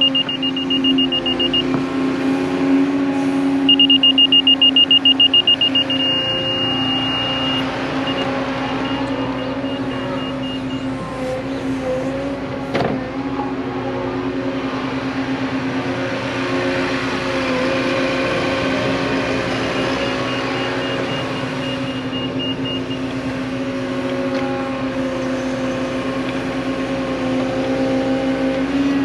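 Laser level receiver on a grade rod beeping fast and high near the start and again a few seconds in, then only faintly, as it reads the depth of the dug-out bed against the laser plane. Under it a wheeled excavator's diesel engine runs steadily throughout.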